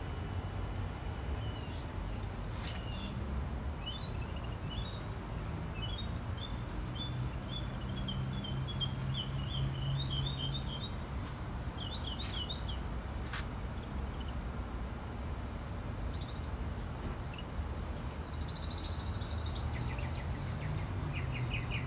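Songbirds chirping in quick runs and trills, with pauses between the runs, over a steady low background rumble.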